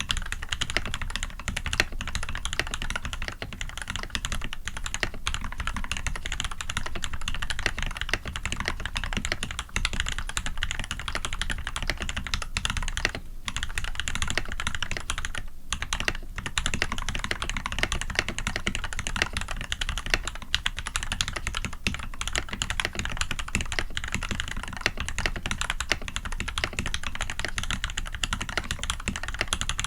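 Fast, continuous typing on a custom Eo87 mechanical keyboard with a brass plate, PBT keycaps and Krytox-lubed SP-Star White switches fitted with Cherry top housings: a dense run of keystrokes, with brief pauses about 13 and 16 seconds in.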